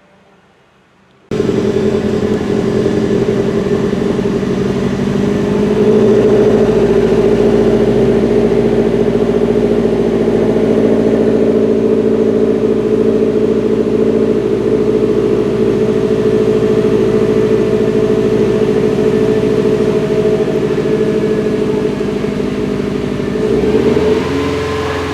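The 2014 Subaru WRX's turbocharged 2.5-litre flat-four engine running at idle, the rough idle being diagnosed. The sound starts suddenly about a second in and holds steady, and near the end the engine note shifts in pitch.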